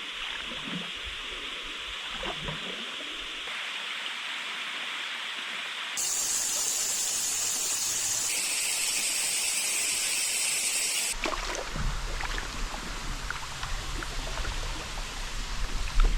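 Rushing water, a steady hiss that changes abruptly twice where separate clips are cut together, loudest and brightest in the middle clip; in the last few seconds a low rumble with scattered splashes.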